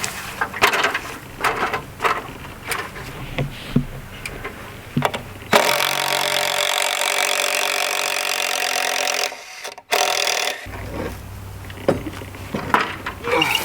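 Hand tools knocking and prying at old timber: irregular sharp knocks and clacks. In the middle comes about five seconds of loud, steady machine noise that starts and stops abruptly, then the scattered knocks resume.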